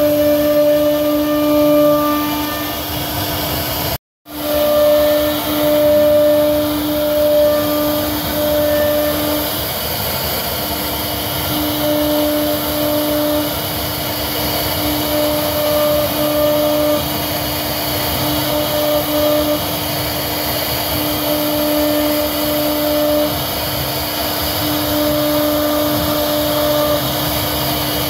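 CNC router spindle carving a wooden panel: a steady motor whine over the hiss of the bit cutting wood, the whine fading in and out. The sound cuts out for a moment about four seconds in.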